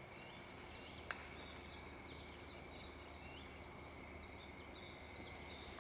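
Rainforest ambience: a faint run of short, high, repeated calls over a steady high insect hum, with one small click about a second in.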